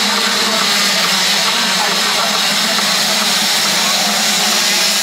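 A pack of motocross bikes at full throttle leaving the start together, a dense, steady mass of engine noise.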